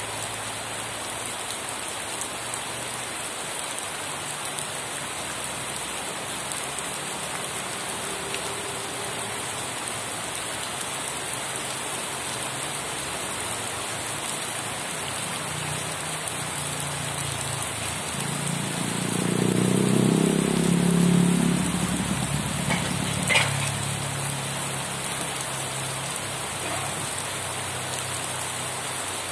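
Steady rain falling on surfaces. About two-thirds of the way through, a low rumble swells and fades over a few seconds, and a single sharp tap follows shortly after.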